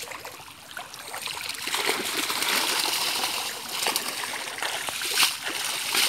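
Fish splashing and thrashing inside a cast net as it is dragged through shallow muddy water, with water running out through the mesh. The splashing grows louder about two seconds in, and there is one sharp splash near the end.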